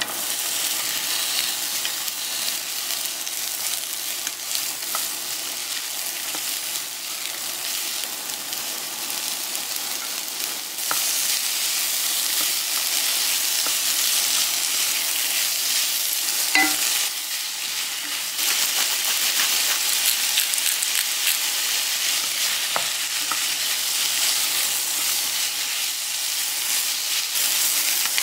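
Onions, ham strips and shrimp sizzling in hot olive oil in a nonstick wok, stirred with a wooden spatula. The steady sizzle grows louder a little over a third of the way in and again past the middle, with one sharp knock near the middle.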